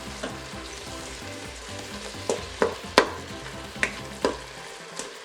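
Ground beef sizzling as it browns in an Instant Pot on sauté, with a spoon stirring and breaking up the meat and clacking against the pot about six times.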